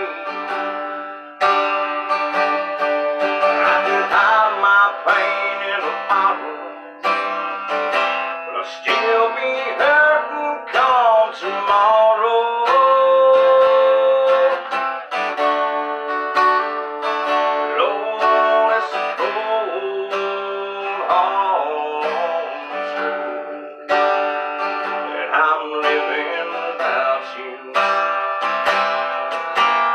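Acoustic guitar played in chords, each new chord struck and left ringing, with a steady run of chord changes.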